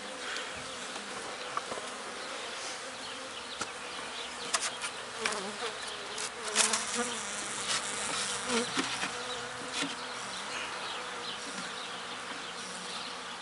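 Honeybees buzzing around an open hive, a steady hum with single bees flying close past the microphone in rising and falling buzzes; the colony is agitated after being opened. A few sharp clicks come in the middle.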